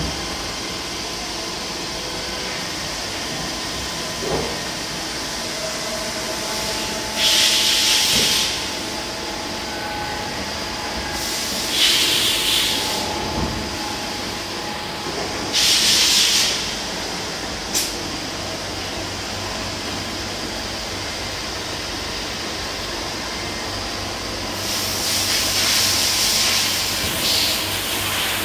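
Okamoto PRG8DXNC CNC ring grinder running its automatic cycle: a steady machine noise from the spinning magnetic table, grinding wheel spindle and coolant system. Loud hissing bursts come four times, a few seconds apart, the last one longer, and there is a single sharp click in between.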